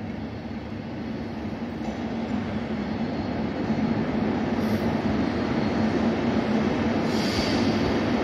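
Electric locomotive hauling coaches approaching through a station. The rumble of the train grows steadily louder, with a brief high-pitched squeal of wheels near the end.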